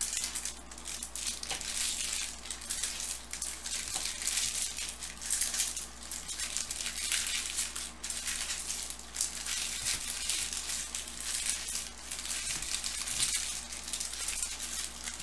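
Foil wrappers of Bowman Chrome trading-card packs crinkling and crackling as the packs are torn open and the wrappers handled.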